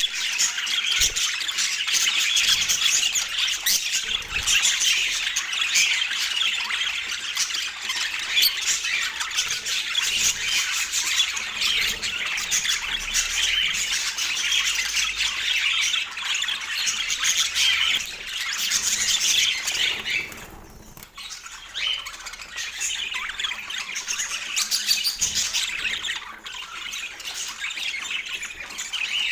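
Budgerigars chattering and warbling in a fast, continuous stream of high-pitched squawks and chirps, with a brief lull about twenty seconds in.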